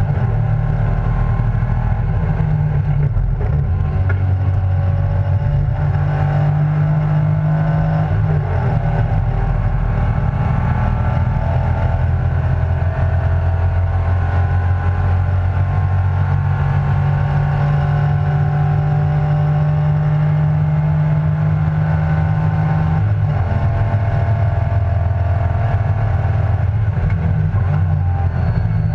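Race car engine running hard at racing pace, heard from inside the cockpit. Its steady note dips and changes pitch briefly about eight seconds in and twice more near the end.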